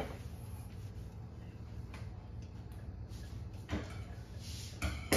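Light kitchen handling sounds: a few soft knocks and a brief rustle of a cloth over a steady low hum.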